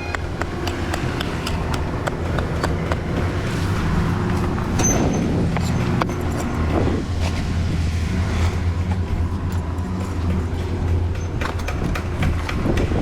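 A motor running steadily with a low hum, with many short knocks and clicks over it.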